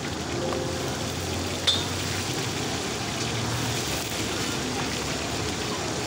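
Fish and green chillies deep-frying in hot mustard oil in a karahi: a steady sizzle of bubbling oil. A single sharp clink comes about a second and a half in.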